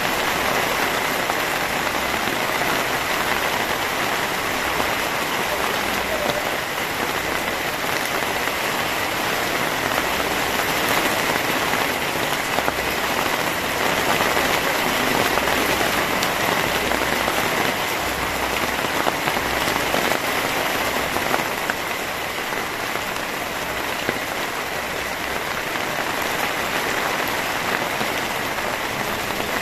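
Heavy rain pouring steadily onto a wet paved road, an even, unbroken hiss.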